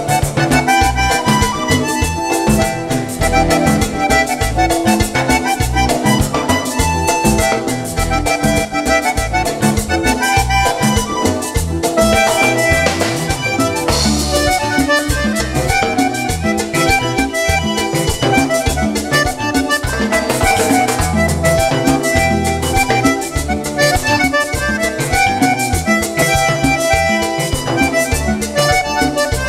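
Live band music in an instrumental passage led by a button accordion, over congas, drum kit and electric bass keeping a steady dance beat.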